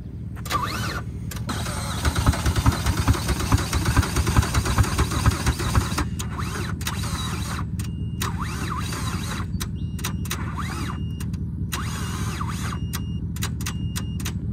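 Ford Fusion's engine being cranked by its starter on a jump pack, turning over unevenly for a few seconds and then more steadily without catching.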